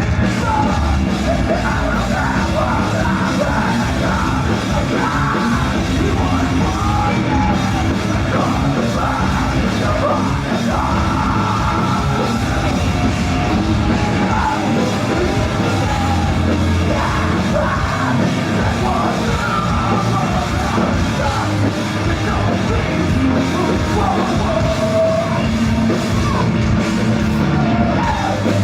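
Rock band playing loud and heavy in a live performance, with a shouted, yelled lead vocal over the full band.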